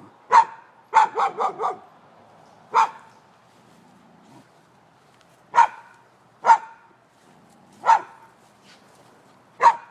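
A dog barking at a person: about ten sharp barks, a quick run of four about a second in, then single barks every one to three seconds.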